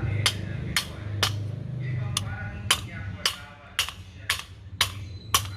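Hammer blows on a worn CV joint's steel housing: sharp ringing metal strikes, about two a second, with a pause near two seconds in, to knock the joint's balls loose.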